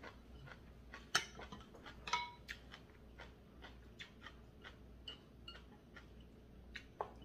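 Metal chopsticks and spoons clicking and tapping against ceramic bowls and plates at a meal: scattered light clinks throughout, the loudest about a second in, and one about two seconds in that rings briefly like a struck bowl.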